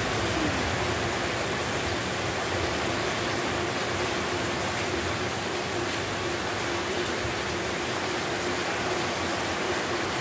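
Heavy rain falling steadily onto wet ground and puddles, an even, constant hiss.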